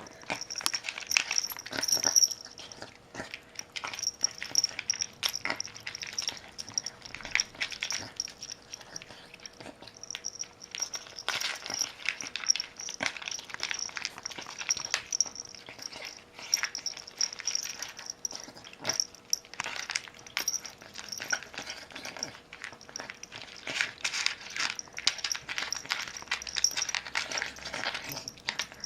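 A dog feeding at its bowl: a dense run of quick, irregular clicks and smacks that goes on throughout.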